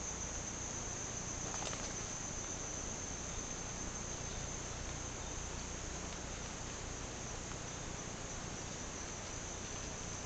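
Steady, high-pitched insect chorus of the Amazon rainforest at dusk, one shrill even tone that holds unchanged throughout.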